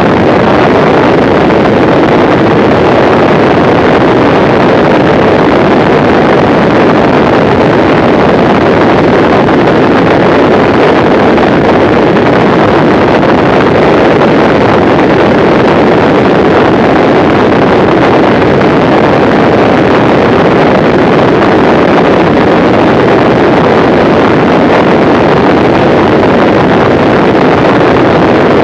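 Mooney M20C light aircraft in fast flight: a steady, loud rush of wind noise over the microphone, mixed with the drone of its four-cylinder Lycoming engine, with no change in pitch or level.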